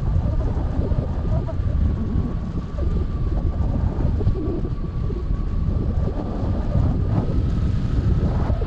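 Airflow rushing over the microphone of a hang glider in soaring flight: a steady, heavy low rumble of wind noise, with a faint steady tone above it.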